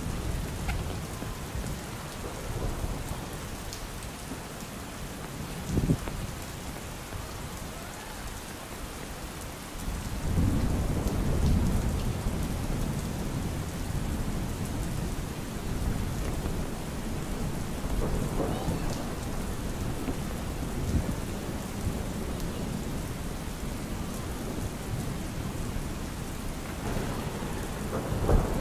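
Steady rain falling on an umbrella, with low rumbles of thunder that swell loudest about ten seconds in. Two short, sharp thuds come through, one near six seconds and one near the end.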